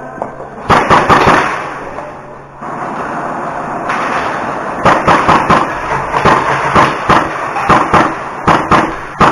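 Airsoft gunfire in close quarters: sharp cracks of shots and BBs striking, a few about a second in, then a fast irregular string of them through the second half.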